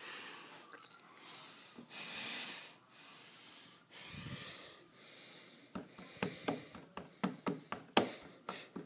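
A girl breathing noisily: long hissing breaths for the first few seconds, then a quick run of sharp little mouth and throat clicks from about six seconds in, as she works up a burp.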